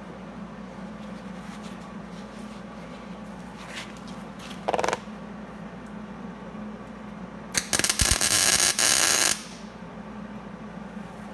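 MIG welder tack welding a steel weld elbow to an exhaust manifold flange: a brief crackling burst of arc about halfway through, then a longer one of nearly two seconds, over a steady low hum.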